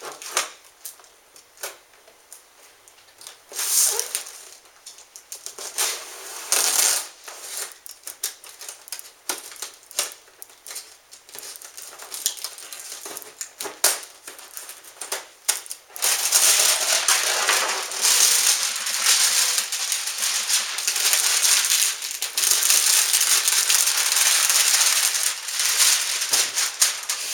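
A cardboard shipping box being cut open with a knife: scattered scrapes, clicks and taps as the blade runs along the tape and the flaps are handled. About two-thirds of the way in, a louder, continuous crinkling of clear plastic packing wrap being pulled and handled.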